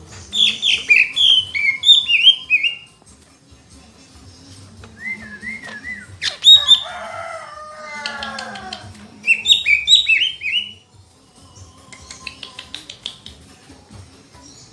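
Green leafbird (cica ijo) in full song: bursts of quick, sweeping whistled notes repeated in phrases, with a lower run of falling notes near the middle. A faint steady hum sits underneath.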